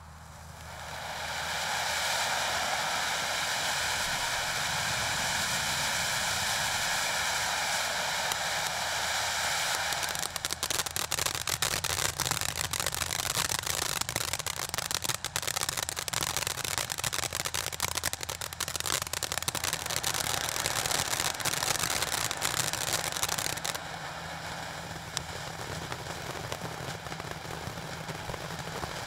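Spider Mania ground fountain firework burning: a steady rushing hiss of sparks for about the first ten seconds, then dense crackling until a few seconds before the end, when it drops to a lighter crackle and hiss.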